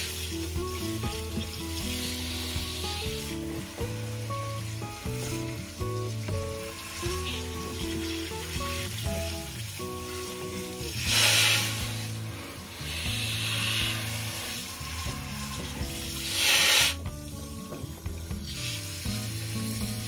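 Water hissing from a garden-hose spray nozzle onto an engine bay, rinsing off foaming engine cleaner, with two louder bursts of spray about 11 and 16 seconds in. Background music with a steady bass line plays throughout.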